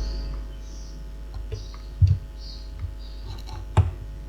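Steady electrical mains hum, with two soft low knocks and faint rustling from handling things on the bench.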